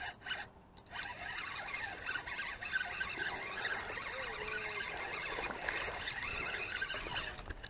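Spinning reel being cranked steadily, its gears whirring as line is wound in on a hooked bass, with a brief pause about half a second in.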